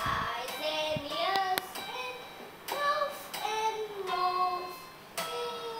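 A young boy singing to himself: a wandering tune of held notes that slide up and down, with a few short taps.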